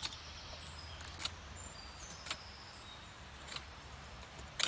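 A series of short, sharp clicks or snaps, about one a second, over a low steady background hum.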